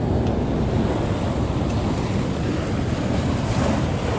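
Ocean surf washing over rocks, with wind buffeting the microphone: a steady rushing noise.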